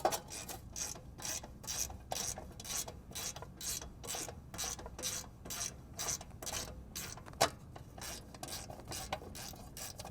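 Hand ratchet with a 12 mm socket turning out a small bolt: repeated bursts of ratchet clicking, about two to three a second, with one sharper knock about seven seconds in.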